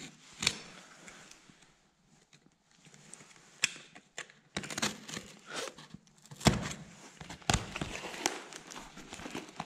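Utility knife slitting the packing tape on a cardboard box, with the box being handled: scratchy slicing and scattered knocks and taps on the cardboard, with a brief lull about two seconds in.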